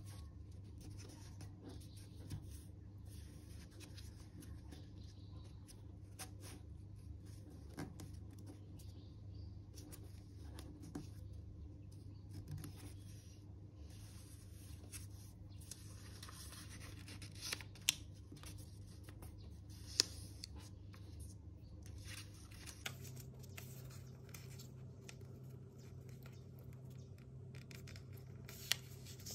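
A sheet of paper being folded and creased by hand on a table: faint rustling and scraping, with a few sharp crackles in the second half. A steady low hum runs underneath.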